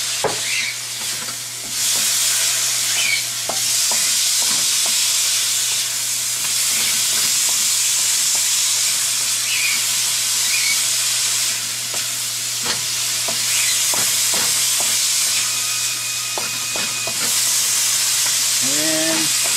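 Bite-sized seasoned chicken pieces sizzling in hot oil in a wok just after a splash of soy sauce, the sizzle swelling and easing as they are stirred. Occasional short knocks sound against the wok.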